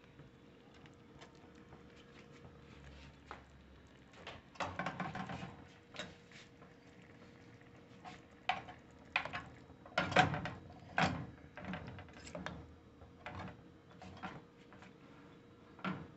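Metal fork scraping and clinking against a frying pan as seared fish pieces are scooped out, in irregular knocks and scrapes that grow louder about ten seconds in.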